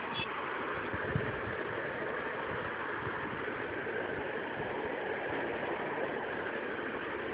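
Steady background noise, an even hiss-like hum with no distinct events, and a brief high chirp right at the start.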